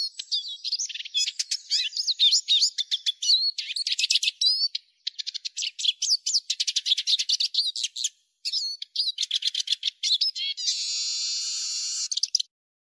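Eurasian siskin singing: a fast twittering song of chirps, sweeping notes and rattling clicks, ending about ten and a half seconds in with a long, buzzy wheeze held for nearly two seconds, the drawn-out call for which the song is prized.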